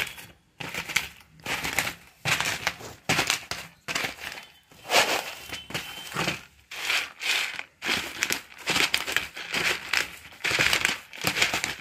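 Roasted, skinned peanuts being crushed coarsely under a wooden rolling pin rolled back and forth over them: a crunching and crackling of the nuts that comes in repeated strokes, roughly one every half second to a second.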